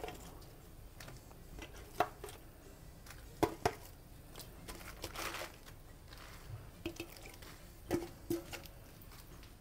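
Napa cabbage leaves slid by hand off a plate into a pot of stock: quiet, scattered soft splashes with a few light clicks.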